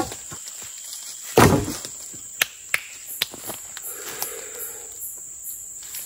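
Insects droning steadily at a high pitch, with one loud thud about one and a half seconds in and a few light clicks and knocks after it.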